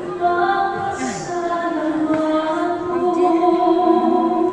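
Crowd of devotees singing a hymn together, mostly women's voices on slow, held notes.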